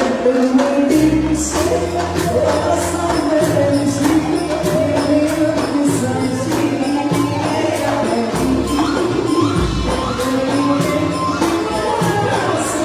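Music with a singing voice carrying a wavering melody over a bass line, with a tambourine keeping a steady beat of jingling strikes.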